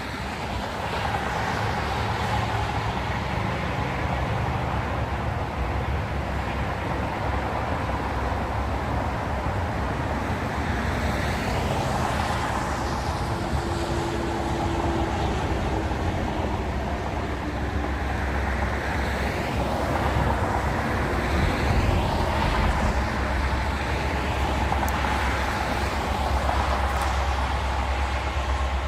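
A train rolling past: a steady low rumble with rolling noise, a faint steady tone running through it, and a few rising-and-falling sweeps in the second half.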